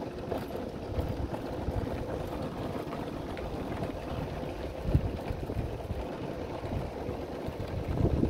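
Motorcycle engine running at low road speed under a steady rumble of wind noise on the microphone, with a louder thump about five seconds in.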